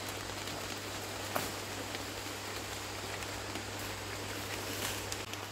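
Steady hiss of jungle ambience with a few faint snaps and rustles, one sharper tick about a second and a half in.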